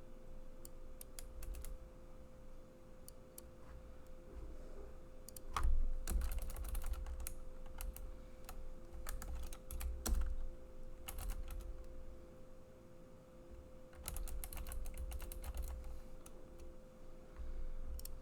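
Typing on a computer keyboard in several short bursts of rapid keystrokes with pauses between, over a faint steady hum.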